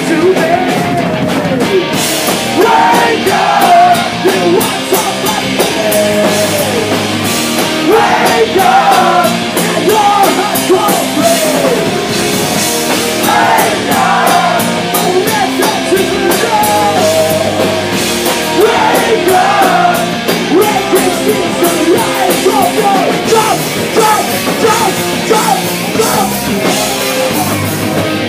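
Punk rock band playing live and loud: drum kit with cymbal hits, guitar, and a singer singing into the microphone over them.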